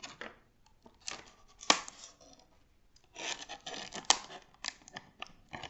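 Dart packaging being pulled and worked by hand in an attempt to open it: irregular rustling and crackling with a few sharp snaps, in two stretches.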